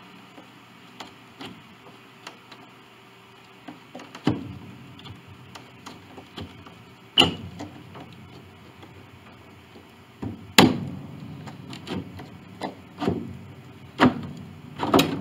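Wooden parts of an 1886 Steinway upright piano being worked loose by hand: irregular wooden knocks, clunks and rubbing, the sharpest about seven and ten seconds in, with a cluster more near the end.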